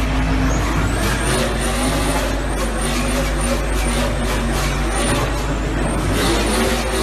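Car doing a burnout: the engine runs steadily at high revs while the spinning rear tyres hiss and give short high squeals on the asphalt.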